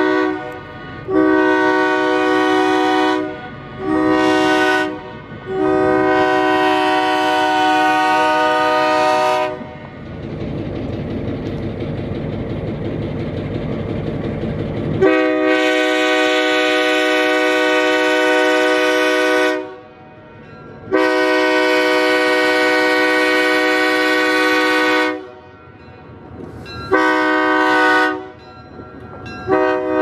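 Locomotive air horn on an EMD SW1200 switcher blowing a chord of several notes in a long series of blasts, some short and some held for several seconds. In a horn-free gap of about five seconds in the middle, a steady rumble of the train is heard instead.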